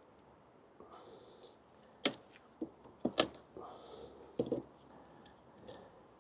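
Wooden beehive frames and hive parts being handled: a handful of sharp knocks and clicks, the loudest about three seconds in, with soft rustling between them.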